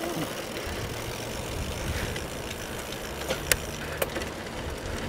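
Giant FastRoad Advanced 1 road bike rolling on asphalt, heard from its handlebar-mounted camera: a steady low rumble of tyres and wind, with a few sharp clicks from the bike, the clearest about halfway through.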